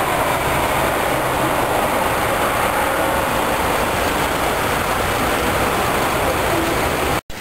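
Steady roar of city road traffic on a wide boulevard, a continuous even rush with no distinct events, cutting off abruptly near the end.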